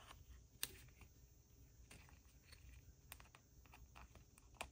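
Near silence with a few faint, sharp clicks of fingers handling a small metal bulb pin and cardstock tag, the clearest about half a second in and near the end.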